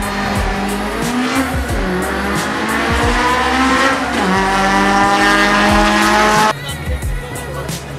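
Car engine revving hard, its pitch rising and falling, with tyres squealing; the sound changes abruptly about six and a half seconds in.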